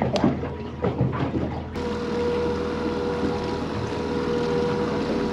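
Boat motor running steadily at trolling speed, a constant hum under wind and water noise.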